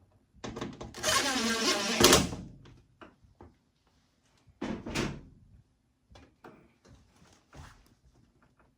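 Handling noises from washer parts being fitted. A scraping rattle runs through the first two seconds, then come a few clicks, a louder knock about five seconds in, and scattered light clicks after it.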